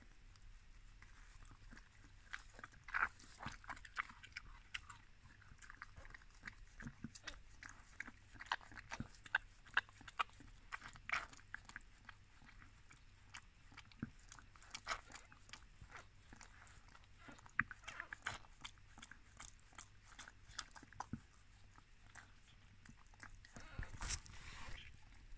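Scottish terrier dam licking and chewing over her newborn puppy: quiet, irregular clicks and smacks of a dog's mouth, with a louder rustle near the end.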